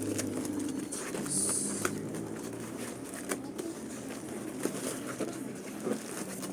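Light clicks and taps of exhaust parts and packaging being handled, with a brief rustle about a second and a half in. A bird calls steadily in the background.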